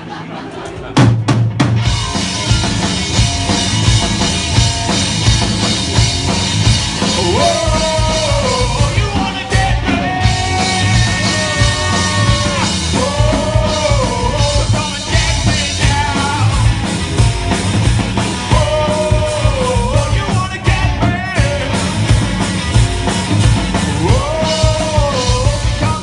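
Garage rock played live by a two-piece band on electric guitar and drum kit. It kicks in loudly about a second in with a drum hit, then carries on with a steady drum beat and a rising-and-falling melodic figure that repeats every few seconds.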